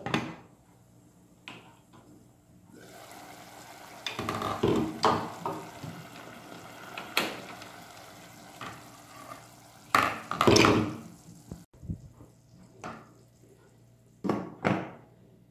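Pot lids and pans clinking and clattering on a gas stovetop as they are lifted and set down, with a steady hiss through the middle stretch.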